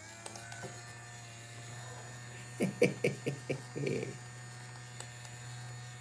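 Small fast-spinning battery DC motor of a Kidz Robotix motorised robot head kit running with a steady hum, driving the plastic gears and cams that move the eyes and jaw. About two and a half seconds in comes a quick run of five or six plastic knocks and a short rattle.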